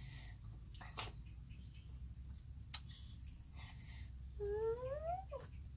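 Insects chirring steadily at a high pitch, with a few faint clicks. Near the end comes a short rising hum-like call.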